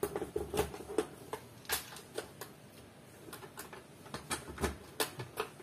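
Mechanical key lock and handle of a FU88G electronic fingerprint safe being worked by hand: a key turned in the lock and the handle turned, an irregular series of sharp metallic clicks and knocks as the safe is unlocked.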